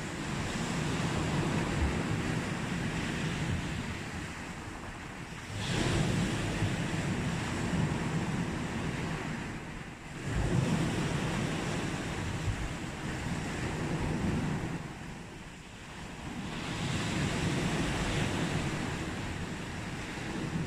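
Sea waves breaking on a beach and washing back. Each wave comes in suddenly, about every five seconds, and then fades, with some wind on the microphone.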